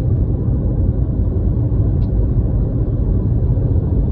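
Steady low rumble of road and engine noise inside a car cabin travelling at highway speed.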